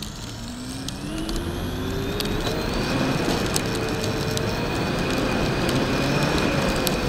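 Battery-powered brushless RC speed-run car accelerating: the electric motor's whine rises in pitch for about three seconds, then holds near top speed. Tyre and wind noise run under the whine, with a few sharp ticks from the road.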